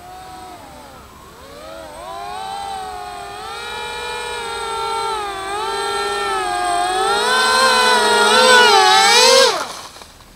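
Electric motors and propellers of a three-motor foam RC Su-30 model plane, a high whine with a wavering, air-raid-siren-like pitch that grows louder as the plane comes in. About nine and a half seconds in the pitch slides sharply down and the sound falls away as the throttle is cut for landing.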